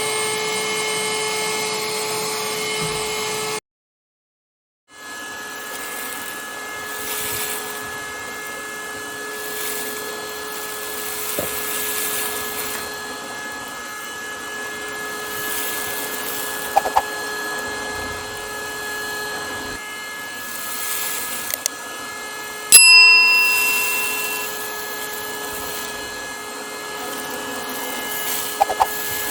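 Parkside PHSSA 20-Li D2 cordless hand-held vacuum cleaner running with a steady motor whine, broken by about a second of dead silence a few seconds in. When it resumes, the suction hiss rises and falls, with a few small clicks. About two-thirds through comes a sharp ringing clink, the loudest sound.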